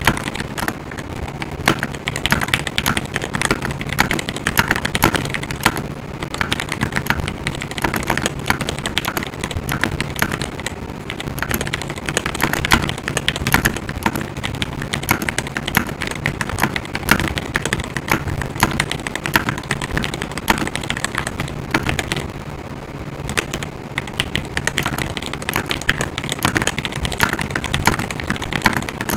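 Fast, continuous typing on a Glorious GMMK Pro mechanical keyboard fitted with Everglide Aqua King linear switches: a dense stream of keystroke clacks, with a short pause about three-quarters of the way through.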